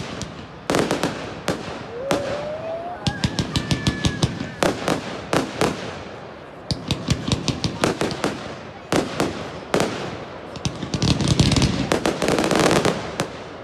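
Fireworks going off in a rapid run of bangs and crackles. A whistle rises in pitch about two seconds in, and a dense burst of crackling comes near the end.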